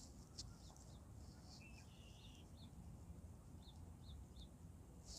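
Faint outdoor quiet with a low rumble. Small birds give short, faint chirps now and then, with one brief buzzy call about two seconds in, and a few faint ticks.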